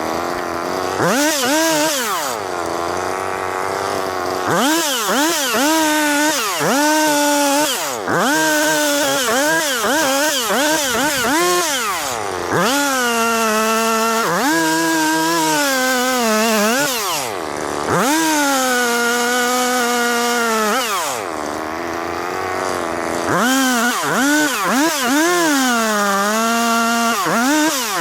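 Two-stroke chainsaw revving up and dropping back again and again, with a few longer spells held at high revs as it cuts up downed trees.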